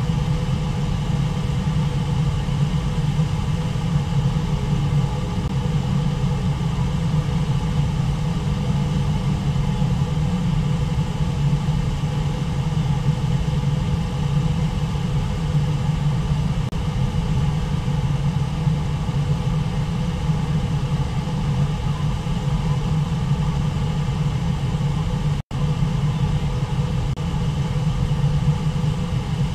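Steady low roar of Brooks Falls, the waterfall and its rapids on the Brooks River, water pouring over the ledge and rushing through the river. The sound cuts out for an instant near the end.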